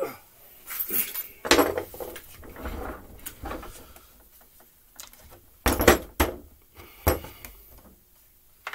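Metal hand tools and screwdrivers clinking and clattering on a workbench, in a series of separate knocks and short rattles, with the loudest knocks about two-thirds of the way through.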